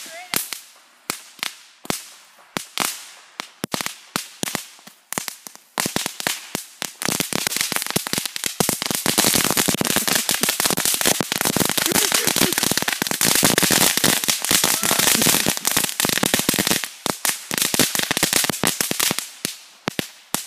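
Spark-throwing ground firework on pavement crackling. Separate sharp pops come two or three a second at first, build about six seconds in to a dense, continuous crackle, then thin back to separate pops near the end.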